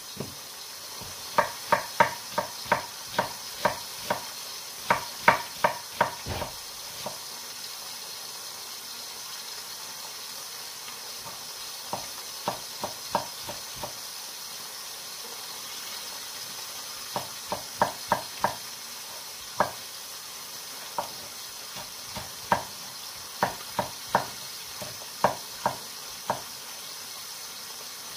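Kitchen knife chopping vegetables on a wooden cutting board: sharp knocks of the blade on the board in runs of about two to three cuts a second, with pauses between the runs.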